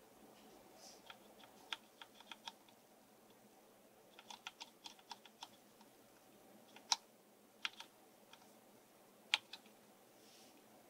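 Keys being typed on a CM Storm Quickfire TK mechanical keyboard with Cherry MX Red linear switches: irregular keystroke clicks, with quick runs of keys about a second in and again around four seconds, then a few louder single strokes.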